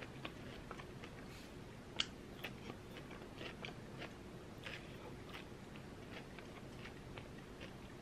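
Close-miked chewing of soft, flaky cream cheese danish, with small scattered crackles and wet clicks of the mouth and sticky pastry. A single sharp click about two seconds in is the loudest sound.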